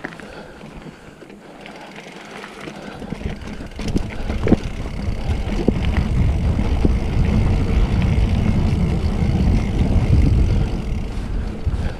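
Wind buffeting an action camera's microphone over the rumble of a Specialized Fuse hardtail mountain bike's tyres on a dirt trail, getting much louder about three seconds in, with a few sharp knocks as the bike hits bumps.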